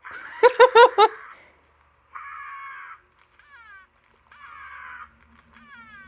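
A man imitating a bird call with four quick, loud warbling whoops. Then come repeated buzzy squawks and short runs of falling chirps like a bird's, all heard through a laptop speaker.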